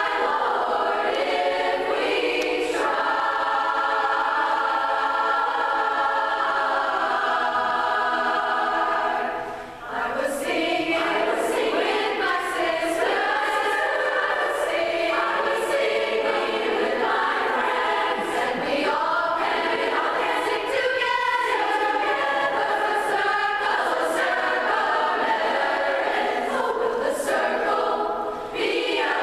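Large choir singing. A long held chord gives way to a brief break about ten seconds in, then moving vocal lines, with another short break near the end.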